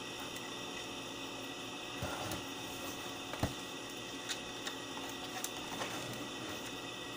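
Plastic boombox casing being handled: a few light clicks and knocks, the loudest about three and a half seconds in, over a steady background hiss.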